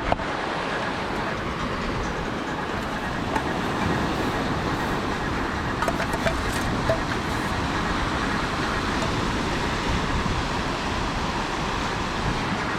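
Steady rushing of a small fan blowing air into a freshly lit campfire to get the wood burning, with a few faint clicks around the middle.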